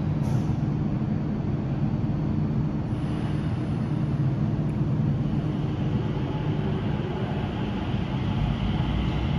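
Changi Airport Skytrain people-mover car moving along its guideway, a steady low rumble with an electric whine that comes in about halfway through and grows stronger as the car draws near.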